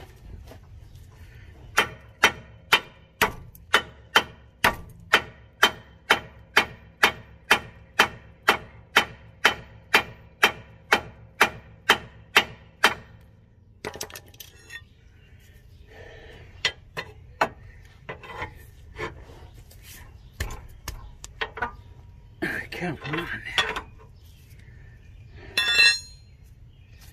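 Hammer blows on steel at a seized lower ball joint of a 2012 Subaru Legacy, about two a second for some ten seconds with the metal ringing between strikes, then slower scattered blows and one loud ringing strike near the end: hammering to shock loose a ball joint that has not been apart in 12 years.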